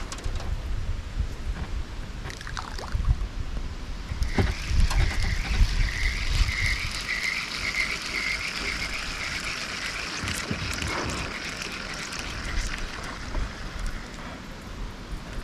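A rough, pulsing animal call sets in about four seconds in and fades out around ten seconds. Under it runs low wind rumble on the microphone.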